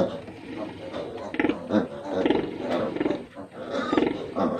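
Pigs in a farrowing pen, newborn piglets with their sow, calling in a quick run of short squeals and grunts, about ten calls, each well under half a second long.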